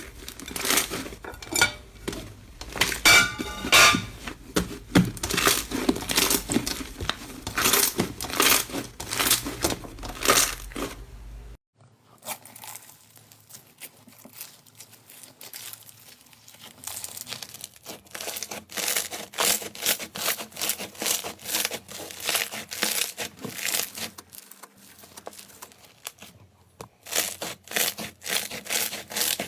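Slime being squeezed and pressed by hand, giving rapid runs of crackling, popping clicks. It changes abruptly about twelve seconds in to a quieter, softer crackle, then comes back louder near the end.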